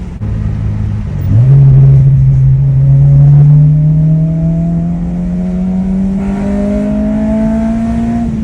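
Honda DC5 RSX Type-S 2.0-litre four-cylinder engine with a Skunk2 Alfa header and catless HKS Hi-Power cat-back exhaust, pulling under throttle: the note steps up about a second in as the throttle opens, then climbs slowly and steadily as the car accelerates in gear.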